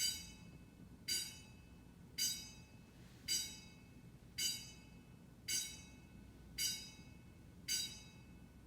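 Fire alarm bell sounding in single strokes, a banging bell struck eight times about once a second, each strike ringing briefly before the next.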